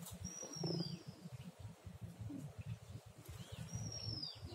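A bird calling: a long, high whistle that slides down in pitch, given twice about three and a half seconds apart, with a few short, lower chirps around them. A low, uneven rumble runs underneath.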